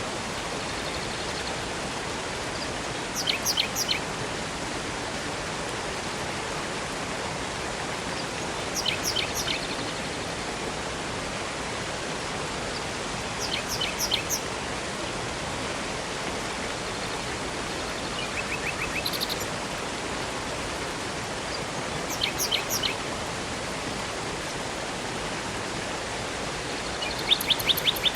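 Steady rush of flowing river or waterfall water, with a songbird giving short bursts of quick, high chirps about every five seconds; the last burst near the end is the loudest.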